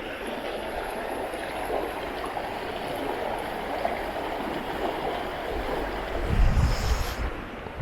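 Jemez River water rushing in a steady, even stream. Near the end, a short gust of wind buffets the microphone.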